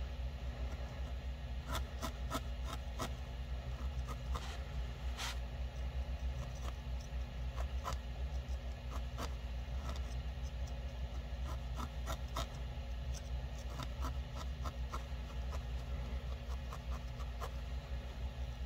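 Felting needle in a wooden handle jabbing repeatedly into a tiny ball of wool, making irregular soft clicks and scratches, over a steady low hum.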